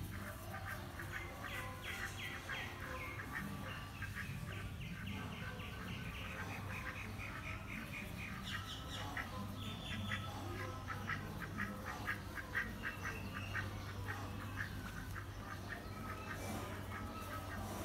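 White domestic duck quacking in a long run of short, repeated calls, several a second.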